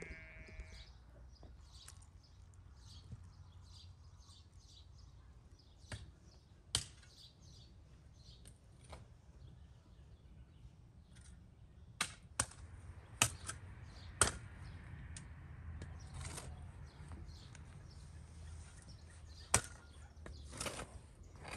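Outdoor ambience with faint bird chirps and a low steady rumble. A sheep's bleat trails off at the very start, and scattered sharp knocks and clicks follow, most of them in the middle stretch and one more near the end.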